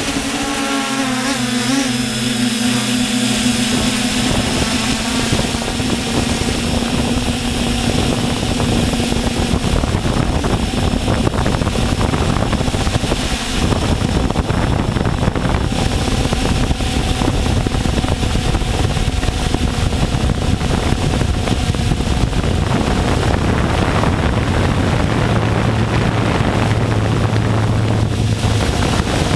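Multirotor drone's electric motors and propellers whirring steadily, heard up close from the onboard camera, with the pitch of the hum shifting now and then as the craft manoeuvres. A rush of wind runs over the microphone throughout.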